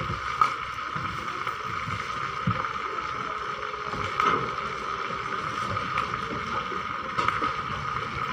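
Chicken feet being tossed and stirred by hand in a wok, with a few short clacks against the pan, over a steady hiss.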